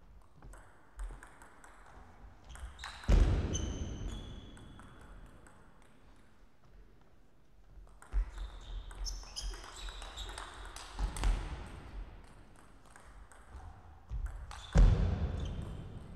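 Table tennis play: the celluloid-type ball clicking off the bats and the table, with shoes squeaking on the court floor. Two louder sudden sounds, about three seconds in and near the end, stand out.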